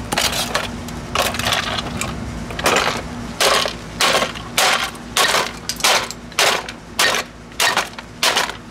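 Hamilton Beach blender run in short repeated bursts, about two a second, with hard contents rattling and grinding in the jar over a steady motor hum. The motor is being driven hard to burn it out, and it holds up.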